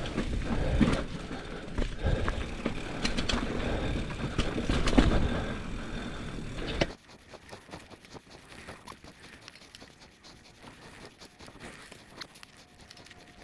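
Mountain bike riding over rough dirt trail with roots: tyre noise and clattering knocks from the bike. About seven seconds in it cuts off suddenly, leaving quiet with faint ticks.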